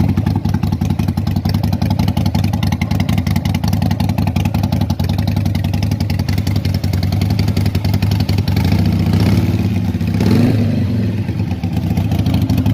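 Harley-Davidson Sportster 1200's V-twin engine idling with a steady pulse, revved once about nine to ten seconds in before the pitch falls back to idle.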